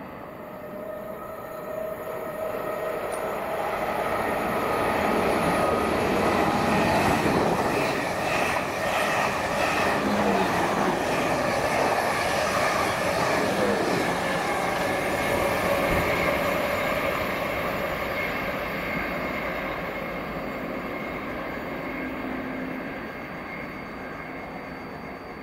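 Passenger train on the South Western Main Line moving through the station. Its rumble builds over several seconds, is loudest through the middle and then slowly fades, with steady whining tones over the noise of the wheels.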